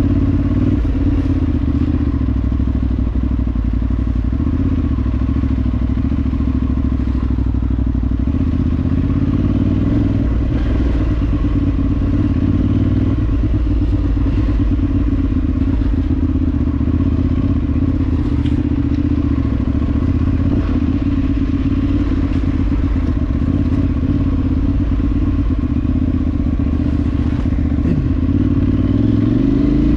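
Parallel-twin adventure motorcycle engine running steadily while riding off-road, with occasional knocks. The engine note rises near the end.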